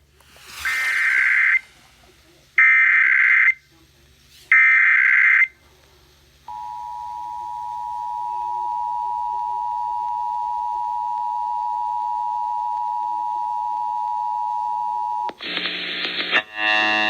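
Emergency Alert System test broadcast over the radio: three short screeching SAME digital header bursts about a second apart, then the steady two-tone EAS attention signal for about nine seconds. The attention tone cuts off into a brief harsh buzz and then a dense cluster of steady tones, garbled audio from the relaying station.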